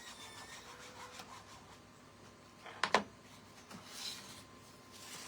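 Sandpaper rubbing against wood, distressing the wood's surface in short scratchy passes. There is a sharp double knock about three seconds in.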